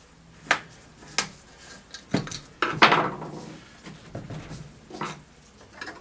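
Sharp metal clicks and clinks of a hand tool and bolts on the drive motor of an oil gun burner as it is unbolted and worked loose, with one louder, ringing clatter about three seconds in.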